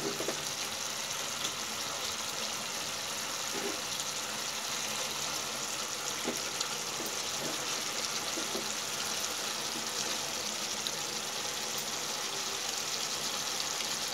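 Mustard gravy (sorshe ilish curry) simmering in a frying pan, a steady sizzling hiss with a few faint crackles.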